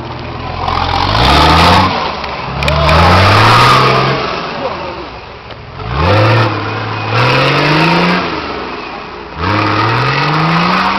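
Off-road 4x4 truck engine revving hard in repeated pulls. About five times the pitch climbs under acceleration and then drops back, as the truck drives through rough terrain.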